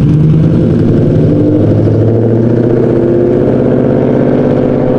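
Ford Mustang GT's 5.0 V8, with Kooks long-tube headers, high-flow cats, an X-pipe and no resonator or muffler, idling loudly with a steady, slightly uneven exhaust note.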